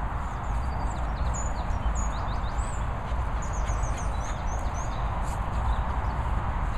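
Steady outdoor noise with wind buffeting the microphone, and a run of faint, quick high chirps in the middle.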